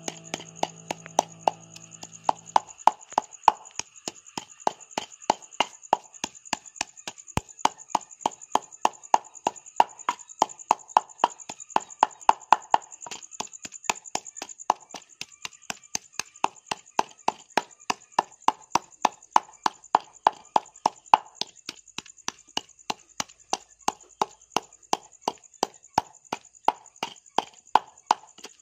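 Wooden pestle pounding wet green herbs in a clay mortar: steady, regular dull knocks about three a second, over a constant high-pitched hiss. Music plays briefly at the start and then stops.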